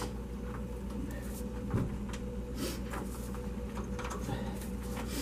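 Scattered faint metallic clicks and scrapes of hand tools working loose the nuts on a Ford F150's EGR pressure feedback (DPFE) sensor, over a steady low hum.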